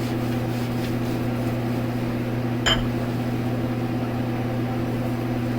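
Steady low electrical hum from an appliance or fan in the room, with a single light clink about halfway through.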